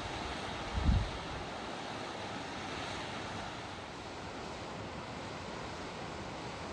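Steady, even outdoor rushing noise with no distinct source, with a brief low thump on the microphone about a second in.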